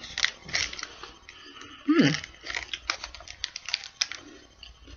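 A person chewing a chocolate-dipped coconut snack bar close to the microphone: a run of small crisp crunches and mouth clicks, with a brief falling 'mm' about two seconds in.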